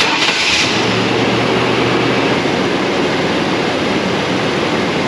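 Chevrolet Silverado engine starting and running, with coolant just topped up so trapped air can bleed out after an intake manifold job. A burst of noise comes as it catches, then a steady hum for a couple of seconds, then a steady rush of engine and fan noise.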